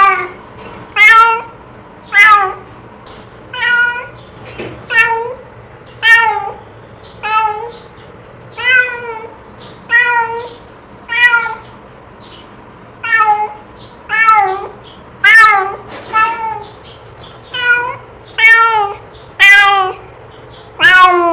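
A cat meowing over and over, short loud calling meows about one a second, each rising then falling in pitch.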